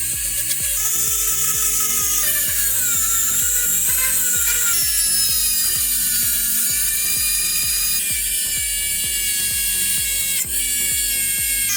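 A small high-speed rotary tool whines, its pitch dipping as it bears into the work, over background music.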